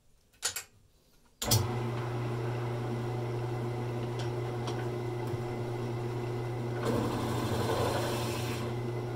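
A couple of short knocks, then a wood lathe starts with a sudden steady motor hum about a second and a half in while a barrel trimmer is fed by hand into the end of the spinning acrylic pen blank to square it off. The cutting noise grows louder for about two seconds near the end.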